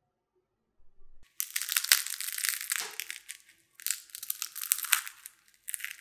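Crisp crust of a homemade baguette-dough roll crackling as hands squeeze and tear it apart, in three crackling bursts, the first the longest.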